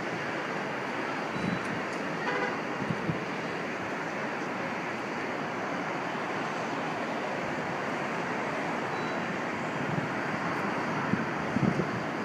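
Steady wind rushing on the microphone over distant traffic noise, with a few low buffets of wind.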